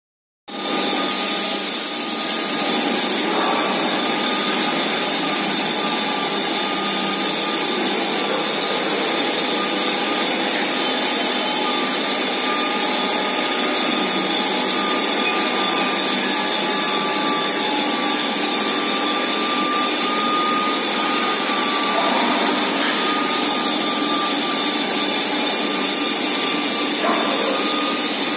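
Robot arm's rotary polishing tool running steadily with a whine over a hiss, the whine dipping slightly in pitch now and then.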